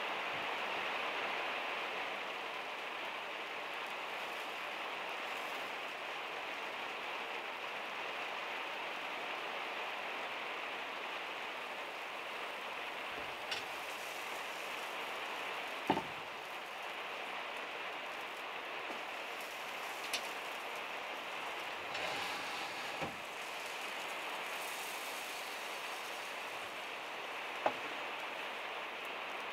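Steady rain falling on a van's metal roof, heard from inside the van. A handful of short, sharp knocks are scattered through it, the loudest about sixteen seconds in.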